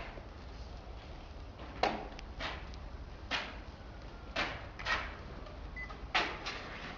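A series of irregular knocks, about seven, spaced from half a second to a second apart, over a low steady hum.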